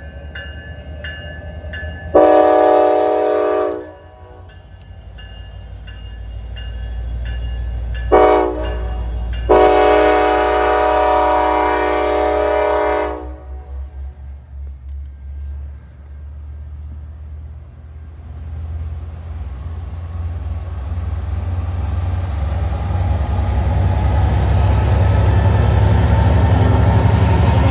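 Diesel passenger locomotive's multi-chime air horn sounding three blasts: a long one, a short one, then a longer one. Then a low rumble of the engines and cars grows steadily louder as the train passes close by. A bell dings about twice a second for the first couple of seconds.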